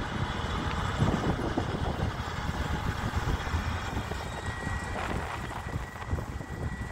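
PKP Cargo SM42 diesel-electric shunting locomotive running light as it pulls away along the track, a continuous low engine rumble. A thin steady high tone comes in about two-thirds of the way through.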